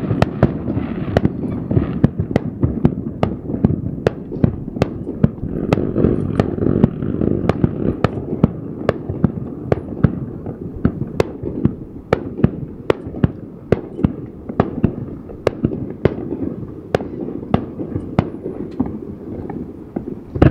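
Aerial fireworks exploding in a steady barrage: sharp bangs about two a second over a continuous rumble and crackle.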